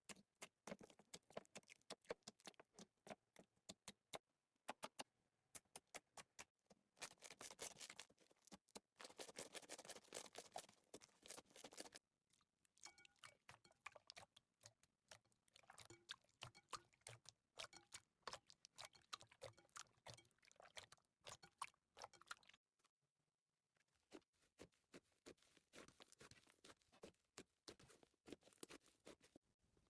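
Slime being squished and worked by hand, giving faint dense runs of small sticky clicks and pops, with a couple of short pauses between bursts.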